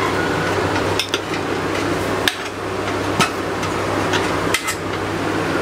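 A steel spoon clinking and scraping against a metal idli steamer plate as steamed potato pieces are lifted out: several sharp clinks at irregular intervals over a steady low hum.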